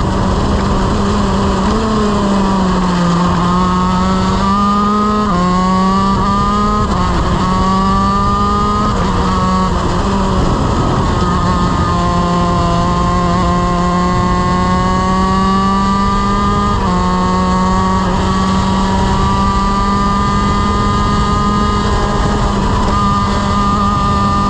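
Honda CR125 two-stroke shifter kart engine running hard at high revs. The pitch sags about three seconds in, then climbs repeatedly under acceleration and drops suddenly at gear changes, a few times over.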